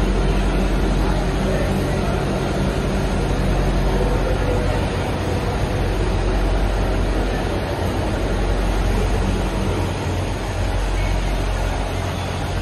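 Steady low mechanical rumble with a continuous hum.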